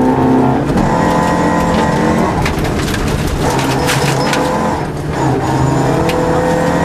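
Opel Ascona rally car's engine working hard, heard from inside the cabin, its note dipping and picking up again several times as it lifts and changes gear. Sharp clicks come through between about two and five seconds in.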